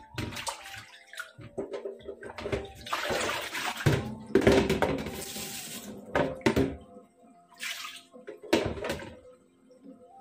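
Tap water splashing into a basin in a stainless-steel kitchen sink as a cucumber and coriander are rinsed by hand, in several spells, the longest about three to five seconds in.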